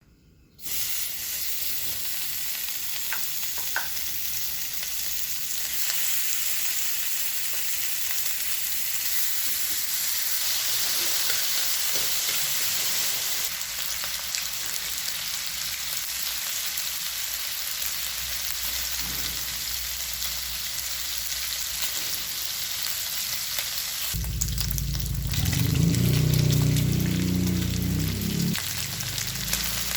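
Food frying in hot oil in a pan, a steady sizzle with crackles. About 24 seconds in, a low rumble joins the sizzle for a few seconds.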